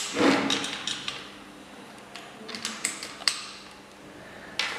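Scattered clicks and taps of multimeter test leads and probe tips being handled and set against a laboratory resistor's metal terminals, with a cluster near the start, another around the middle and a last pair near the end.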